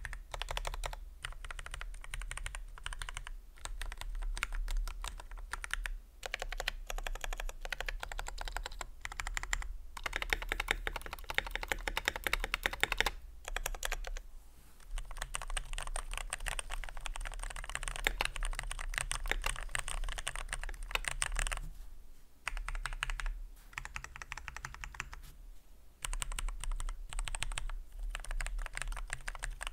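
Fast typing on a Keychron K10 Pro mechanical keyboard with its stock Keychron K Pro Brown switches, key clicks coming in runs of a few seconds with short pauses between them. This is a keycap sound test comparing ABS and PBT keycaps.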